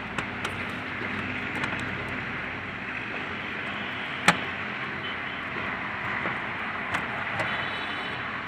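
Scattered small clicks and taps of a screwdriver and screws against a metal PC case while motherboard mounting screws are tightened, one louder click about four seconds in, over a steady background noise.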